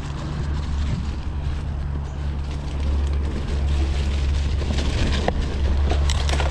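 Wind rushing over an action camera's microphone while riding a mountain bike, a steady low rumble mixed with tyre and trail noise, with a few sharp clicks near the end.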